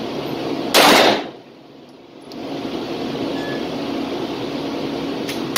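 Arex Rex Alpha 9mm pistol fired once about a second in, a sharp shot ringing off the indoor range walls, and a second shot right at the end. A steady low hum fills the pause between the two shots.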